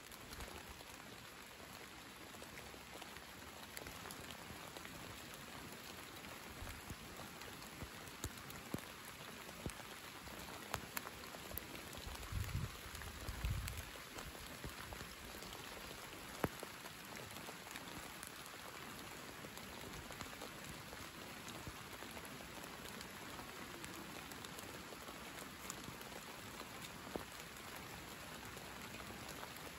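Steady summer rain falling, a continuous patter with scattered individual drops ticking close by. A brief low rumble about halfway through is the loudest moment.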